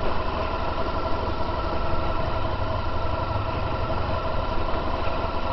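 Honda VFR1200X Crosstourer's V4 engine running steadily at low revs as the motorcycle rides slowly along a rough dirt track.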